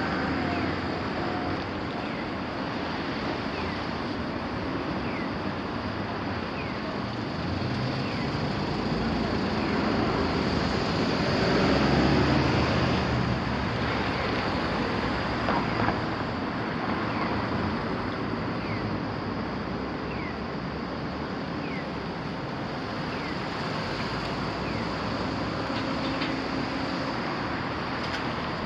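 Steady road traffic noise, with a vehicle passing and growing loudest about twelve seconds in.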